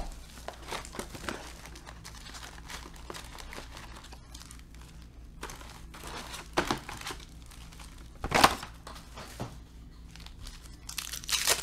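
Crinkling and rustling of wrapper, cardboard and foil as a Panini Prestige basketball card hobby box is opened and its foil packs are pulled out and set down, with louder crackles about six and a half seconds in, at about eight and a half seconds (the loudest), and near the end.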